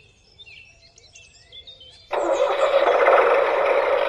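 A small motor starts abruptly about two seconds in and then runs steadily.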